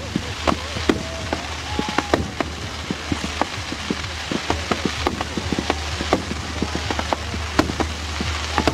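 Fireworks crackling overhead: a dense, continuous patter of sharp little pops from crackling star bursts, with a few short whistling tones now and then and a steady low hum underneath.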